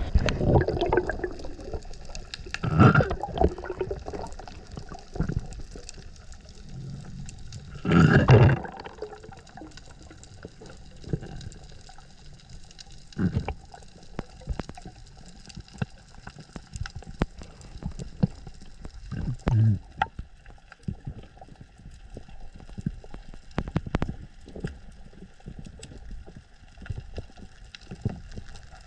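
Underwater sound of a free dive: water rushing and bubbling against the camera, with a steady crackle of fine clicks. Louder bubbly gushes come about 3 and 8 seconds in, and shorter ones later.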